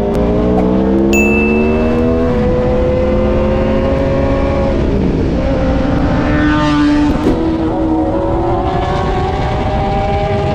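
Sport motorcycle engine accelerating hard through the gears. The pitch climbs, drops at an upshift about two seconds in and again near five seconds, then climbs once more.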